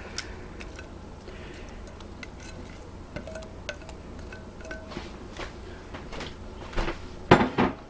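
Rubber spatula scraping and tapping in a stainless steel mixing bowl of diced apples and flour. Each touch sets the bowl ringing briefly at the same pitch, with soft clicks and a few louder knocks near the end.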